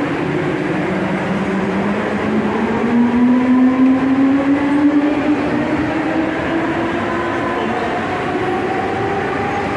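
Mumbai suburban electric local train pulling out of the platform and gathering speed, its traction motors giving a whine that rises slowly in pitch over the steady noise of the wheels on the rails. The whine is loudest a few seconds in.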